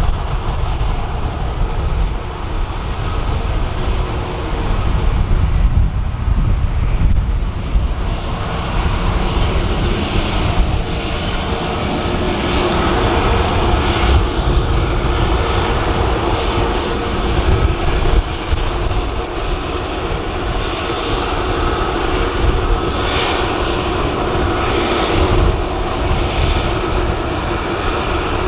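Airbus A320 jet engines running at taxi power: a steady engine whine that grows stronger about halfway through, over a heavy rumble of wind on the microphone.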